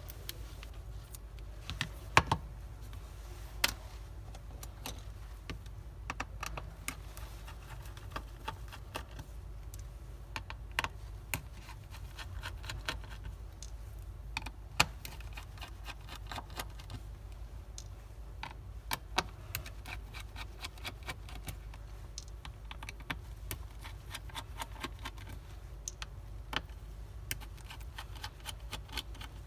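Small, irregular clicks and taps of metal tools and parts during a hard-drive head swap, as the head stack is moved from a donor drive into a Toshiba MQ04 laptop drive. A steady low hum runs underneath.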